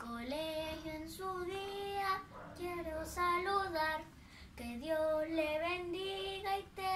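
A young girl singing unaccompanied: a simple melody of held notes, in phrases with short breaks between them.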